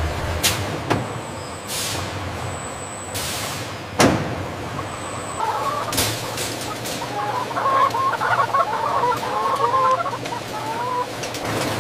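Chickens clucking, a dense run of overlapping calls through the second half. Before it, a few sharp knocks, the loudest about four seconds in, and swishing noises over a steady industrial hum.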